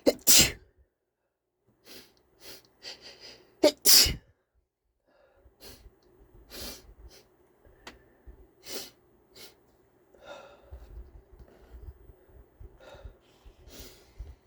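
A man sneezing twice, stuffy and wet, the loud sneezes about four seconds apart. Quieter short breaths and sniffs follow.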